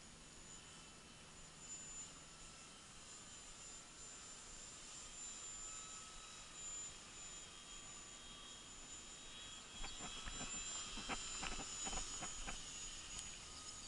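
Faint, steady high whine of a distant RC Texan T-6 model plane's electric motor and propeller in flight. About ten seconds in, a quick run of sharp clicks and rustles close to the microphone is the loudest sound.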